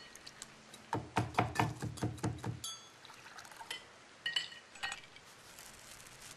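A quick run of about ten knocks in a heavy rocks glass, about six a second: a sugar cube being muddled with bitters for an Old Fashioned. Then a sharp ringing clink as ice goes into the glass, followed by three lighter clinks over the next couple of seconds.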